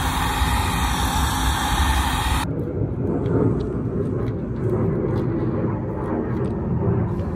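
Electric heat gun running, a steady airy hiss over a fan rumble. About two and a half seconds in, the high hiss cuts off suddenly and a lower, steady rumble remains.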